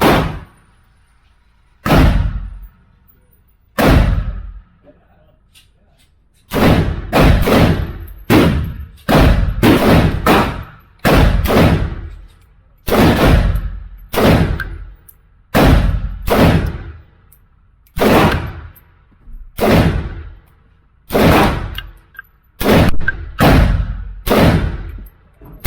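AR-15 pistol in 7.62x39 firing semi-automatically. Two single shots about two seconds apart are followed by a long string of about thirty shots, one to two a second, some fired in quick pairs.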